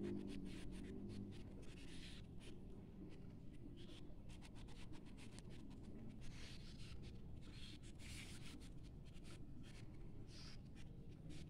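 Folded tissue rubbed over oil-pastel colouring on notebook paper to blend it: faint, irregular scratchy rubbing strokes.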